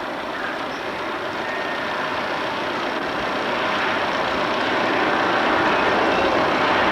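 Airship engine drone, steady and growing gradually louder.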